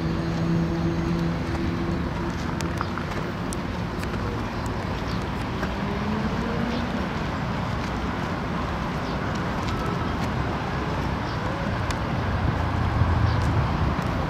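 Outdoor background noise with motor-vehicle sound: a low engine hum at the start, and a low rumble that swells near the end.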